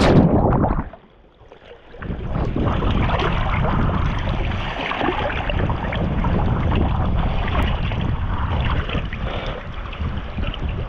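Wind buffeting the microphone over rushing river water. A loud rush breaks off sharply about a second in, and after a moment of quiet a duller, muffled rushing carries on steadily.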